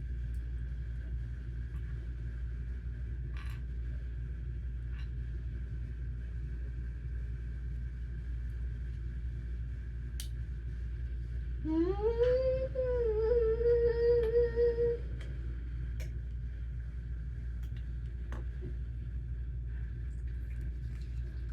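A person hums one note for about three seconds, starting about 12 seconds in; it slides up at the start and then wavers. Underneath runs a steady low background hum with a few faint clicks.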